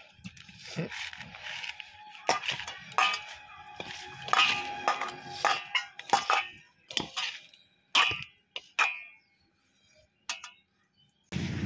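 Paneer cubes being mixed by hand in a stainless steel bowl: irregular clinks and scrapes against the metal, with a faint ringing of the bowl, thinning out near the end.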